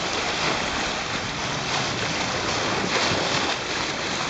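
Sea water rushing along the bow of a sailboat under way, with wind buffeting the microphone: a steady, even rush of noise.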